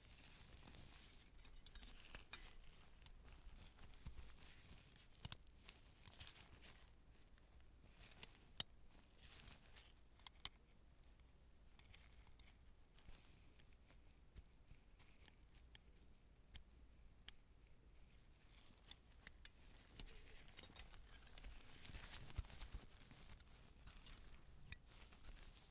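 Soft handling of surgical instruments and supplies: scattered light clicks and metallic clinks, one sharper click about eight seconds in, with stretches of faint rustling in between.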